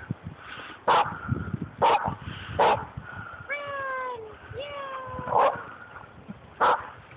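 Dog barking in short, sharp barks, five in all, with two drawn-out whining yowls that fall in pitch in the middle.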